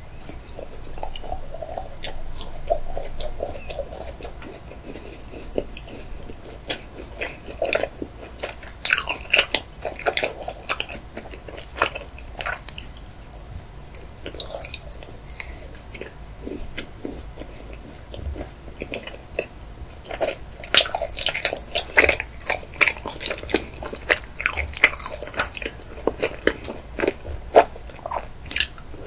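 Biting and chewing a bubbly milk chocolate bar: many sharp crackles and snaps, coming thickest in clusters partway through and again in the last third.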